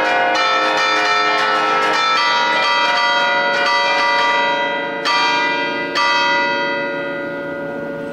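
A peal of large bronze church bells, Cavadini-cast in 1950, tuned in B-flat and playing an allegrezza in quick succession. Two last strong strikes come about five and six seconds in, then the bells ring on and die away.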